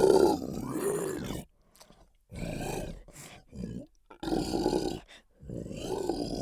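Monster sound effect: a throaty creature voice giving a series of about five growling groans and grunts with short breaks between them, the first the loudest.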